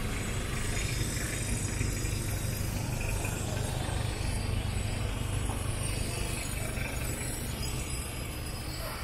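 Street traffic: a steady low rumble of vehicle engines and tyre noise, with no single event standing out.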